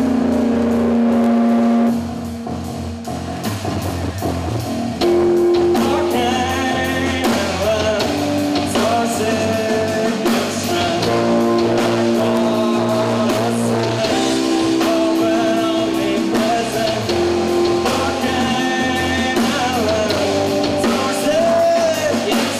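Live rock band playing on stage: electric guitars, bass guitar and drums. The band drops to a quieter passage about two seconds in, comes back in full about five seconds in, and a man sings over it from then on.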